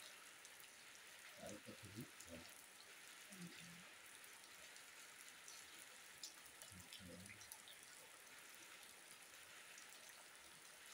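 Faint, steady rain falling on wet ground, with scattered drops ticking.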